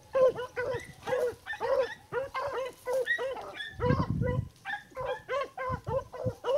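A pack of beagles baying on a track: several dogs giving short, rapid, overlapping yelps at slightly different pitches, about three or four a second. The hunters think the dogs are running the deer's trail. There is a brief low rumble about four seconds in.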